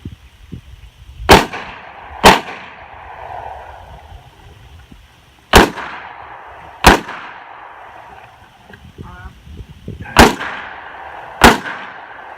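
Six gunshots from a Smith & Wesson Model 66-8 revolver, fired in three pairs about a second apart with a few seconds between pairs, each shot with a brief echo.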